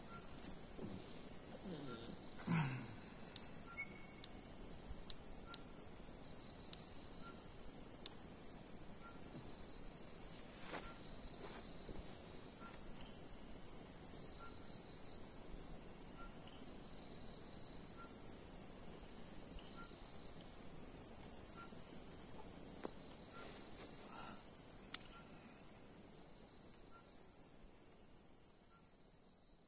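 Night insect chorus of crickets: a continuous high-pitched pulsing trill, with a fainter, lower call repeating about once a second. It fades away near the end.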